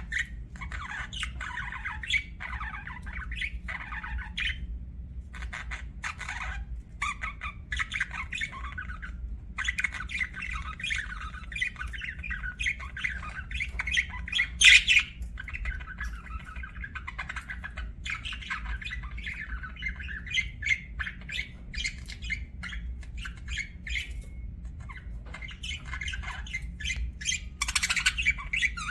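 Budgerigars chattering: a near-continuous stream of rapid chirps, warbles and squawks, with a few louder calls about halfway through and near the end. A steady low hum runs underneath.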